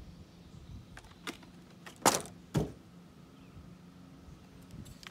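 Knocks and clinks of hand tools and metal air-line fittings being handled and set down on a truck bed, with two louder knocks about two seconds in, over a faint steady hum.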